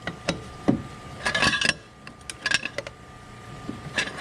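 Metal clinks and rattles of a socket wrench and a length of steel pipe used as a cheater bar, worked on a stuck bolt that has just broken loose, with a busier clatter about a second and a half in.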